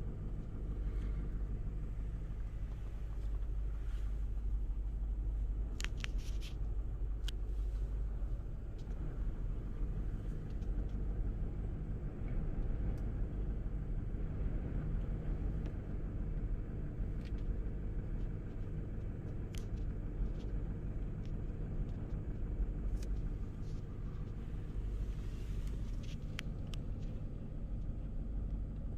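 Strong wind gusts of around 65 mph buffeting the microphone, making a heavy, steady low rumble. A few sharp clicks or rattles come through, a cluster about six seconds in and more near the end.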